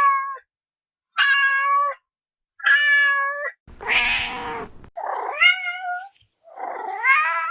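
Kitten meowing repeatedly. Three level-pitched meows come first, then a harsh, raspy cry about halfway through, then meows that rise in pitch.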